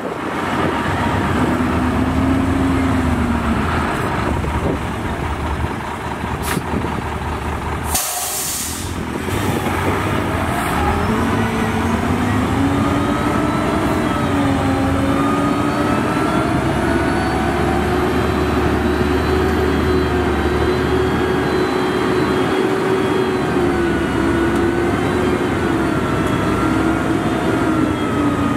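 Diesel engine of a loaded four-axle dump truck running as it manoeuvres, with a short loud air-brake hiss about eight seconds in. From about twelve seconds the engine climbs to higher revs and holds there steadily while the hydraulic hoist raises the tipper body to dump the load.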